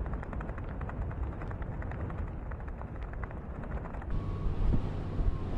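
Storm wind rumbling on the microphone, with many small ticks through the first four seconds. The sound changes abruptly about four seconds in, as at a cut, to a smoother rumble.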